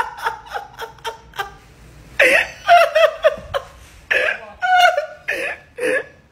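A person laughing in quick, high-pitched bursts, getting louder about two seconds in.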